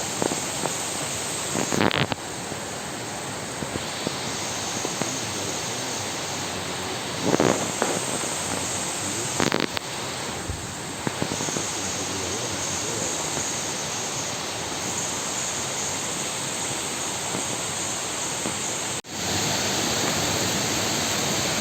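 Steady rushing noise with a few brief knocks, and a sudden jump in loudness near the end.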